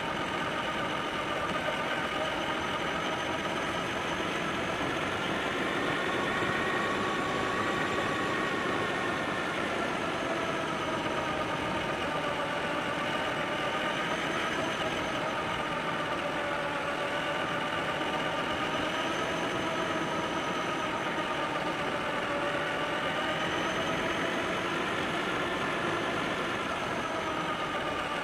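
Traxxas Summit RC truck's electric motor and drivetrain whining as it drives along a gravel track. The pitch rises and falls gently with speed, over a steady rush of tyres on dirt.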